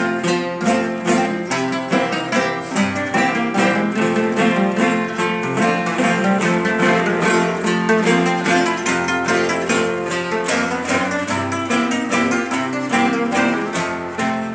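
Acoustic guitars playing a song's instrumental introduction: a plucked melody over steadily strummed chords.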